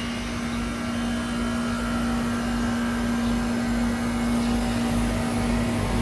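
2003 Carrier TECH2000 38YKC heat pump outdoor unit running, with a steady electrical hum over a continuous rush of machine noise and a low rumble.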